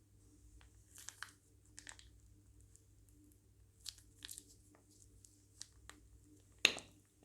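Plastic piping bag being handled, giving scattered short crinkles and crackles, with one louder crackle near the end.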